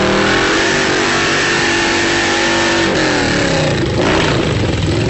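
Harley-Davidson V-twin held at high revs in a burnout, the rear tyre spinning on wet asphalt; the engine note falls away about three seconds in.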